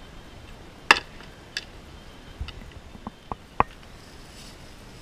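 Blows knocking against round wooden shields in sparring: a handful of sharp knocks, the loudest about a second in and several more in quick succession later.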